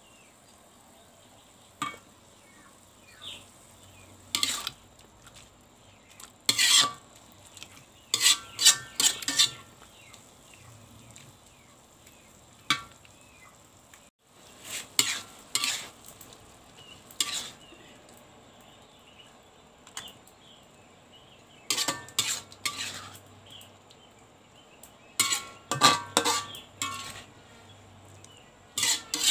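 Water spinach stir-frying in a pan: a cooking utensil clanks and scrapes against the pan in short bursts of stirring, with a faint sizzle between them.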